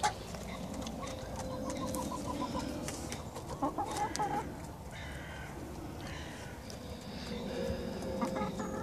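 Domestic hens clucking: a run of quick, even clucks near the start, then a few louder pitched calls about four seconds in.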